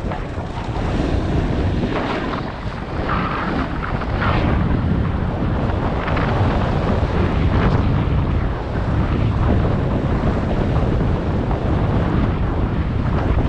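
Heavy wind noise on the microphone from riding speed, with a snowboard's edges hissing and scraping over groomed snow in swells as it turns.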